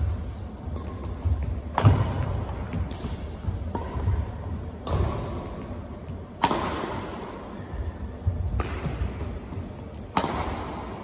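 Badminton rally: racket strings striking a shuttlecock with sharp cracks every second or two, each ringing on in a big hall's echo, over the dull thuds of players' footwork on the court. A hard jump smash lands near the end.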